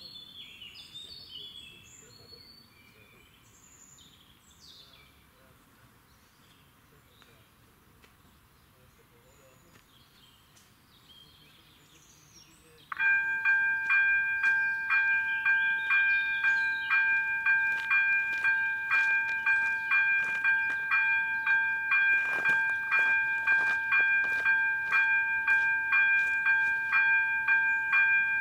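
Birds chirping briefly, then about 13 seconds in the level crossing's electric warning bell starts suddenly and keeps ringing rapidly and loudly. The crossing has activated: a train is approaching.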